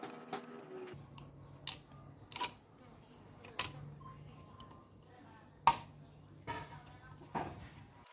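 Small scissors snipping through a thin plastic bottle: about seven sharp, separate clicks at irregular intervals, the loudest a little past the middle. Background music stops about a second in, leaving a low steady hum.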